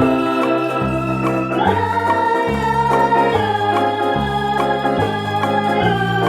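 Background music: held keyboard chords over a bass line that steps to a new note about once a second, with one upward slide in pitch about two seconds in.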